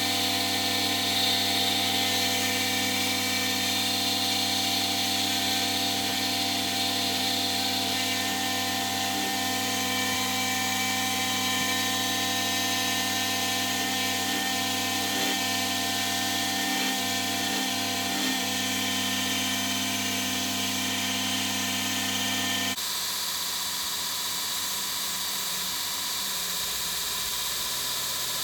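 A power tool's motor running steadily with a constant hum, then switching off about 23 seconds in, leaving a quieter steady hiss.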